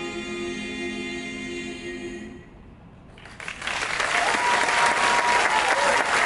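A mixed high school choir holds a final sustained chord and releases it about two and a half seconds in. After a short pause the audience breaks into applause, which swells and stays loud.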